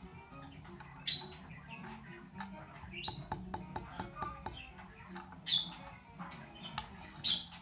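A bird chirping in short, high calls about every two seconds, over faint small clicks.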